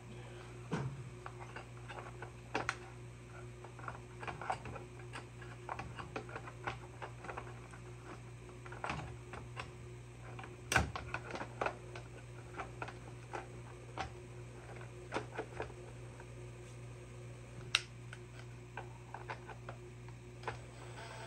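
Scattered light clicks and knocks of a chainsaw's plastic top cover being handled and fitted back onto the saw, with a sharper snap about halfway and another about three-quarters through, over a steady low hum.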